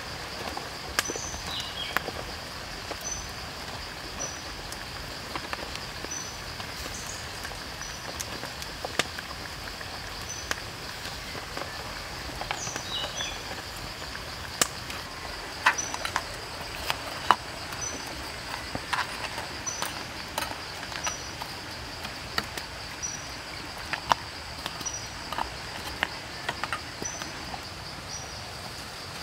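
Steady high insect drone with short chirps about once a second, over scattered sharp crackles and pops from a wok of soup simmering on an open wood fire.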